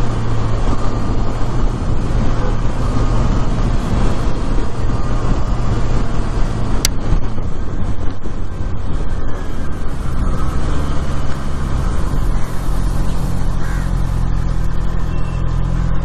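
Motorcycle engine running at a steady cruising pace, heard from the rider's seat under a haze of wind and road noise, with its note changing about ten seconds in. One sharp click sounds about seven seconds in.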